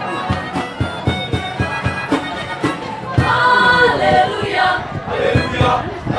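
Mixed choir of boys and girls singing, over a quick, steady beat of low thumps. The voices swell louder about three seconds in.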